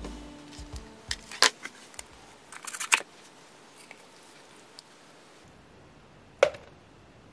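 Thin plastic cups being handled: scattered light clicks and crinkles, with a quick cluster of taps about three seconds in and one more click near the end.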